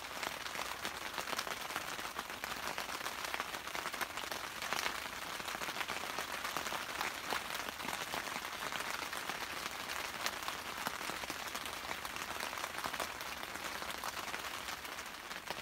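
Steady rain pattering on a tarp awning overhead: an even, dense crackle of drops that runs on without a break.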